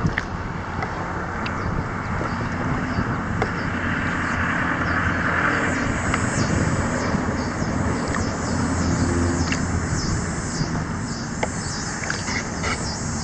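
Outdoor creek ambience: a steady rush of wind on the microphone with a low rumble, and a swell like a car passing on the road ahead about four to six seconds in. From about halfway on, a high chirping repeats a few times a second.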